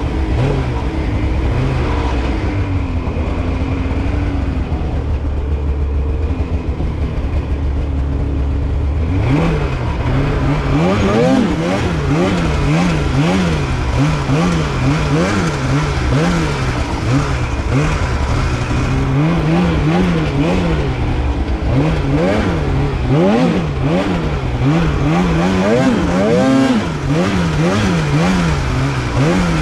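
Polaris Khaos Slash 9R snowmobile's two-stroke twin engine running at a steady pitch, then from about nine seconds in revving up and down over and over, roughly once a second, as the throttle is worked.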